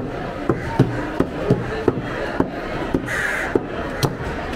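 Large knives chopping tuna on wooden log chopping blocks: short thuds repeating a few times a second. A crow caws once about three seconds in.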